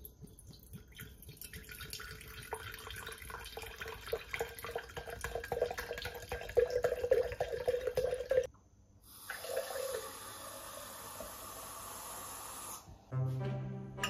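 Liquid pouring in a stream into an iwaki Pyrex glass jar, splashing and gurgling as the jar fills. The stream stops about eight and a half seconds in, then pours again for a few seconds. Background music comes in near the end.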